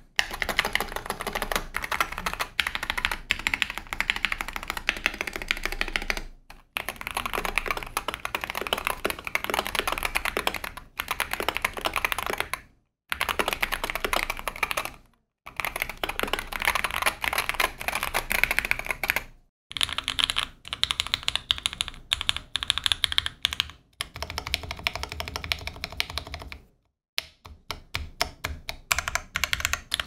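Typing on a stock Wooting 60HE keyboard with Lekker Hall-effect linear switches in a plastic case, on a deskmat: fast, steady keystroke clatter, smooth with no rattle. It comes in several takes, each cut off by a short dead gap, and the last few seconds are a sparser run of separate key presses.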